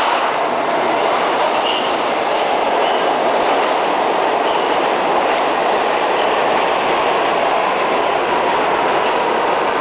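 New York City subway D train pulling into an underground station, its cars passing close by: a steady, loud rush of steel wheels on rail. Faint, brief wheel squeals come in the first few seconds.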